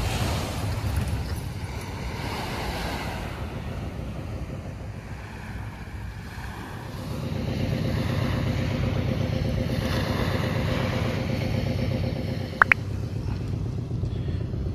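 Wind on the microphone and a steady low rush of surf; from about seven seconds in, a steady engine hum joins. A short rising whistle sounds once near the end.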